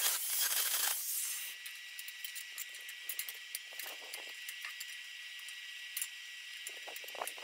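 Stick arc welding on the steel body of a gas-cylinder wood stove: a steady hiss with irregular crackling, louder for about the first second.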